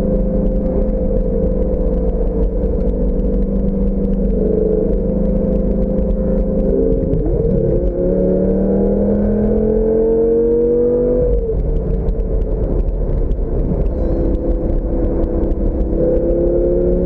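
Lamborghini engine heard from inside the open cabin, running steadily at cruise, then pulling harder about halfway through with its pitch rising for about three seconds before a gear change drops it back. A steady low rumble of wind and road noise sits underneath.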